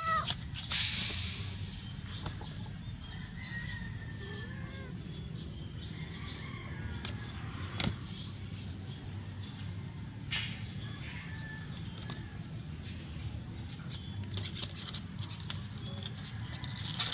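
An eight-week-old kitten gives a short meow. About a second in comes a loud crackling rustle of a plastic tarp as the kittens scrabble against it. After that, faint scratches and rustles of kitten claws on the tarp, busier near the end as the tabby kitten climbs it.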